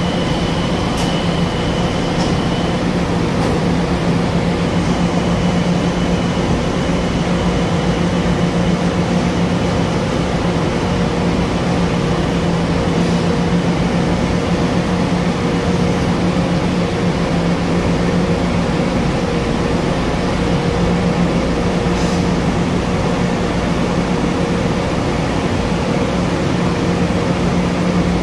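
Long Island Rail Road electric train pulling out of an underground station and running off into the tunnel: a steady hum and rumble that holds level, with a thin high whine in the first few seconds.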